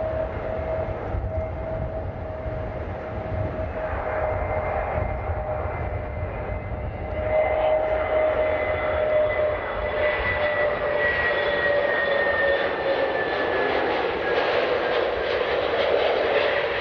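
Airliner engines whining with two steady tones over a rumble. The sound grows louder about seven seconds in, and from about ten seconds in both whining tones slide slowly lower in pitch.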